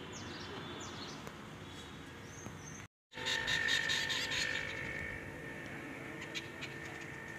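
Outdoor garden ambience with small birds chirping. A brief dropout comes about three seconds in; after it a steady high tone runs under rapid chirping.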